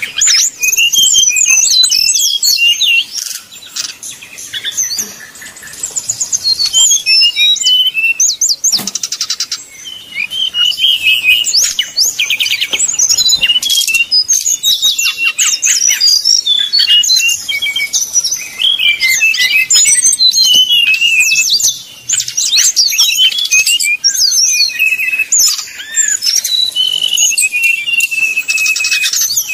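Brown-chested jungle flycatcher song: fast runs of high, twisting whistles and chattering notes, broken by a few short pauses.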